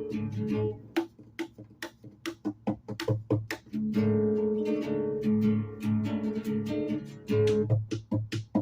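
Music played on a plucked string instrument: ringing chords alternating with runs of short, sharp plucked notes.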